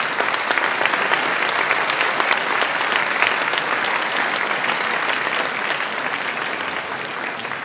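Audience applauding: many hands clapping in a dense, steady patter that eases off a little near the end.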